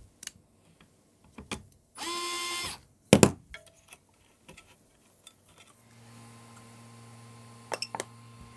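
Small electric screwdriver whirring once for under a second as it undoes the heater wire terminal screws on a 3D printer mainboard, followed by a sharp click. About six seconds in, a low steady hum starts, with a few small clicks near the end.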